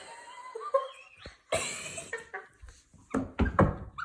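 People giggling and laughing in short bursts, with a few brief taps or knocks near the end.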